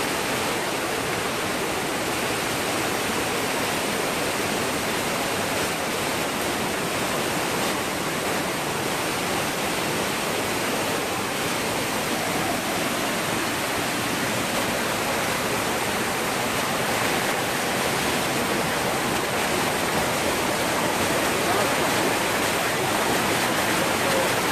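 Waterfall: water pouring over rock with a steady rushing hiss that grows a little louder near the end.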